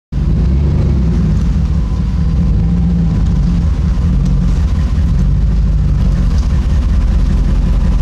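The 4.7-litre V8 of a 2007 Dodge Ram 1500 running steadily as the truck reverses, with a loud exhaust rumble. It is louder than it should be because the tailpipe has rusted off the back of the stock muffler.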